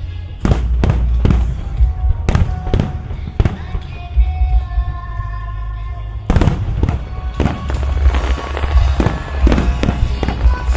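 Aerial fireworks bursting in rapid barrages with deep booms and crackling, over loud music from the show's loudspeakers. The shots come in a quick run in the first few seconds, ease off for a moment with the music alone, then start again in a dense run about six seconds in.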